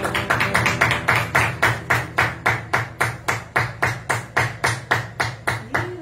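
Rhythmic clapping in unison, about four claps a second, easing slightly in pace, then stopping.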